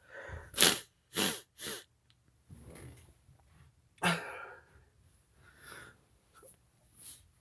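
A person sniffing sharply through the nose three times in quick succession, trying to bring on a sneeze, then a short breathy gasp about four seconds in, followed by fainter breaths.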